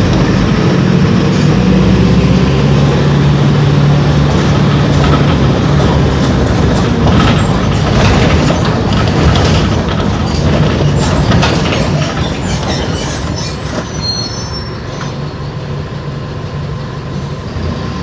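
Mercedes-Benz OF-1418 bus with its six-cylinder turbodiesel running under way: a steady engine drone that shifts in pitch, with a constant rattle. Later on the engine eases off and gets quieter, with a few short high-pitched squeaks.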